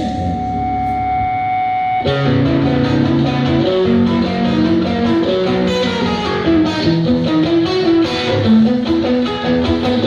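Electric guitars played live, opening a song. A chord rings out, then about two seconds in a picked melodic line starts over low held notes.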